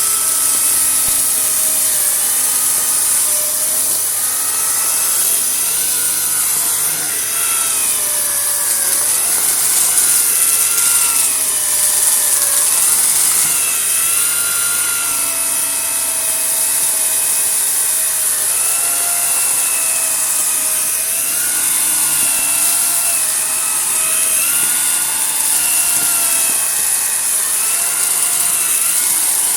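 Vacuum cleaner running steadily with a loud hiss of rushing air, its motor whine shifting up and down in pitch every second or two.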